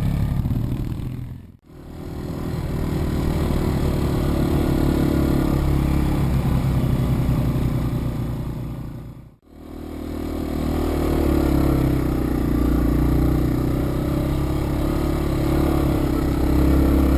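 Yamaha TW200's single-cylinder four-stroke engine running steadily while riding. The sound fades out and back in twice, about one and a half seconds in and again about nine seconds in.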